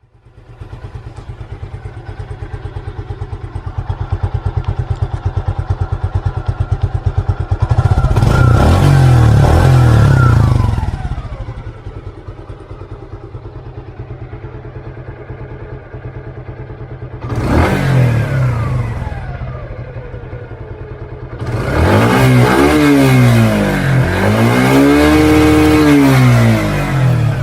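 Single-cylinder small-displacement motorcycle exhaust idling with an even thump, then revved up and let fall back: two short blips, and near the end a run of repeated revs that climb and drop.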